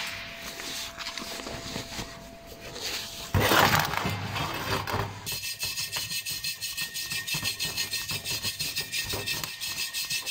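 Wooden-handled wire brush scrubbed back and forth over a fresh stick weld on a stainless steel tube, cleaning off slag and discoloration. From about halfway through it makes quick, even scraping strokes, about five a second, after a louder burst of scraping a little past a third of the way in.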